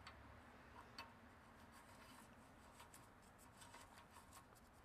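Near silence with faint, scattered metallic ticks, the clearest about a second in, as the inner axle nut is spun onto the spindle threads by hand.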